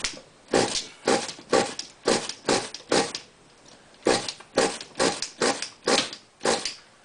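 Pull-start recoil cord of a 1/10-scale nitro RC truck engine yanked again and again, about two pulls a second with a short pause about three seconds in; each pull gives a brief whirring rasp as the engine turns over without catching.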